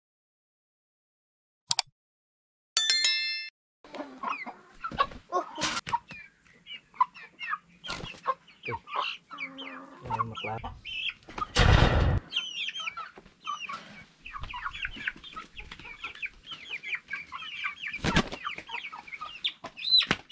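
A short electronic chime, then a flock of young silkie × Rhode Island Red cross chickens peeping and clucking with many short, high calls. Scuffling runs under the calls, with two loud bumps, one midway and one near the end.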